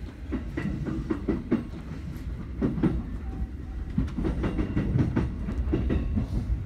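Keihin-Tohoku Line electric commuter train pulling out of the station, its wheels clacking irregularly over the track with a steady low rumble, heard from inside the front car.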